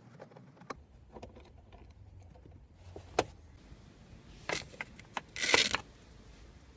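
Screwdriver work on the Miata's plastic center console: scattered sharp metal-and-plastic clicks and clinks as screws come out, then a short scraping rattle about five and a half seconds in, the loudest sound.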